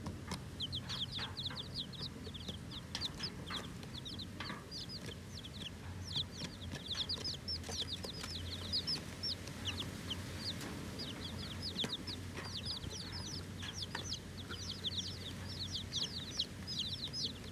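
Newly hatched chicks peeping as a flock: a continuous chorus of many overlapping high, short peeps, each sliding down in pitch.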